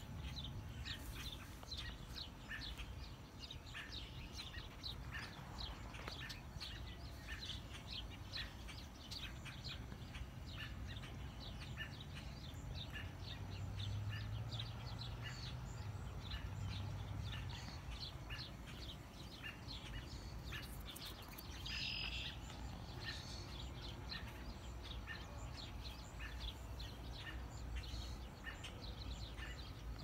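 Small birds chirping over and over in a dense, continuous chorus, with one louder call about three-quarters of the way in, over a steady low rumble of background noise.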